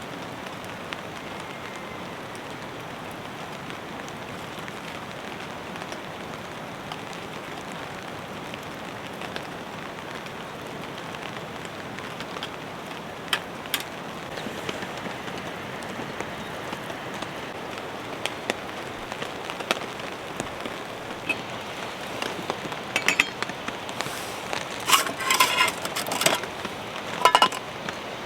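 Steady rain falling on a tent. In the last few seconds it is joined by clusters of louder, sharper taps.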